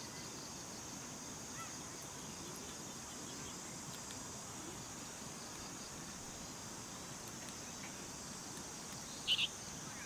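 Wood fire burning in a small folding tent stove, with faint scattered crackles over a steady high-pitched insect chorus. Near the end a short, sharp double chirp is the loudest sound.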